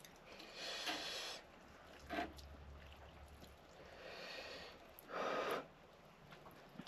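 A person blowing on hot noodles to cool them: about four breathy puffs, the strongest about a second in and about five seconds in.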